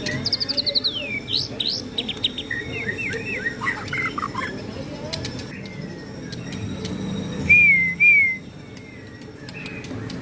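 White-rumped shama (murai batu) singing: a varied run of quick whistles, rapid trills and slurred notes, with two loud whistled notes in quick succession about three-quarters of the way through.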